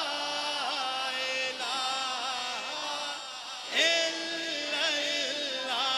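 Male voice singing an unaccompanied Punjabi kalam (devotional naat) through a sound system, holding long ornamented notes; a new, louder phrase starts a little past halfway.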